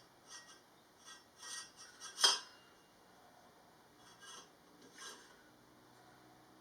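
Metal exhaust parts being handled and worked: short scrapes and light metallic clinks, the loudest a sharp clink about two seconds in.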